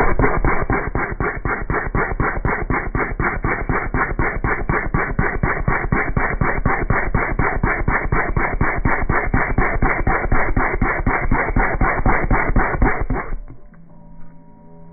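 A person's fart noise slowed down into a long, low stream of separate pops, about four or five a second, which stops suddenly near the end.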